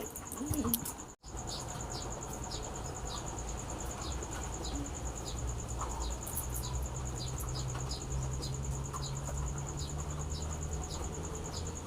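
Insects chirring steadily in a high, thin tone, with faint ticks about twice a second and a low hum underneath.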